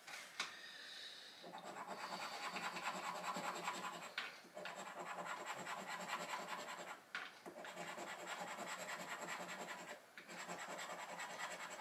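A scratchcard being scratched: quick repeated rubbing strokes scraping off the scratch-off coating, in runs of about three seconds broken by short pauses.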